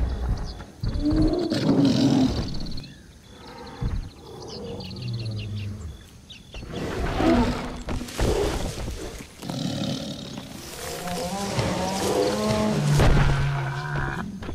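Big cat growls and roars: a series of separate low, pitched calls with gaps between them, the longest near the end.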